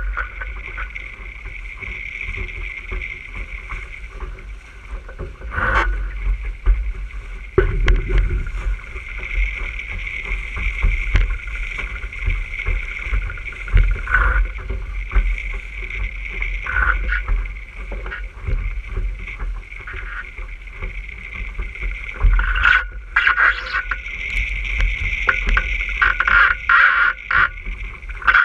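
Wind buffeting the microphone and water rushing and splashing along the hull of an RS600 dinghy under sail, with irregular knocks and spray hits throughout.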